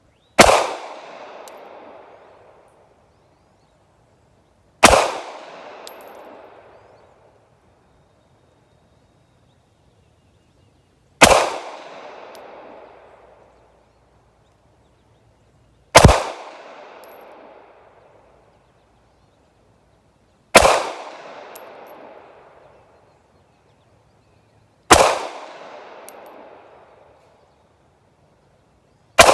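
Smith & Wesson Bodyguard 2.0 .380 ACP pistol firing seven slow, deliberate shots, several seconds apart, the first rounds through the new gun. Each shot is a sharp crack with an echo trailing off over about two seconds; the last comes right at the end.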